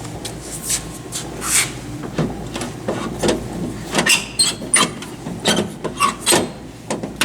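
Irregular scraping, rubbing and clicking from hand work on parts, with a denser run of sharper knocks and scrapes in the second half.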